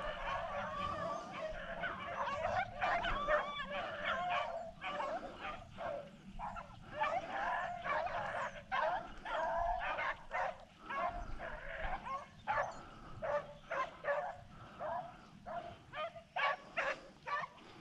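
A pack of rabbit hounds baying in chorus while running a rabbit's track. Many voices overlap at first, then thin to separate barks and yips over the last few seconds.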